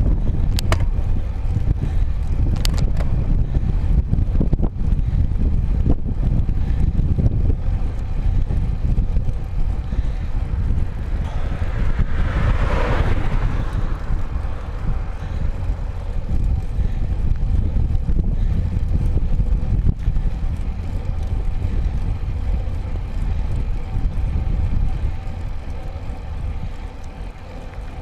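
Steady low rumble of wind and road vibration on a road bike's handlebar-mounted camera. About twelve seconds in, a car passes, swelling and fading over a couple of seconds, and there are a few short clicks.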